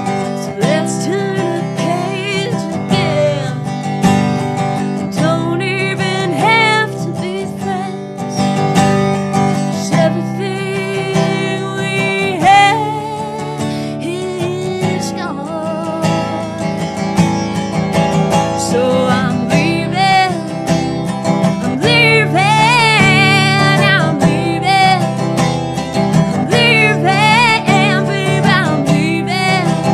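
A woman singing a song over a strummed wood-bodied resonator guitar, her held notes wavering with strong vibrato, especially about two-thirds of the way through.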